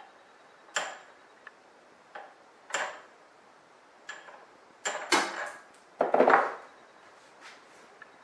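Sharp metal-on-metal taps on a large bolt used as a drift, knocking a seized part out of a blender's metal drive housing clamped in a vise: about six ringing knocks at uneven spacing, the loudest a longer clattering one a little past the middle.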